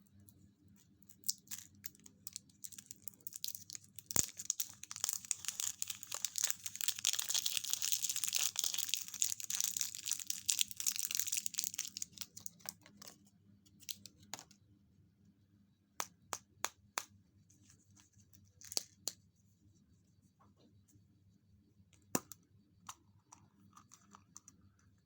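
Packaging wrapper being crinkled and torn open in a dense crackling run of several seconds, followed by scattered sharp clicks and taps.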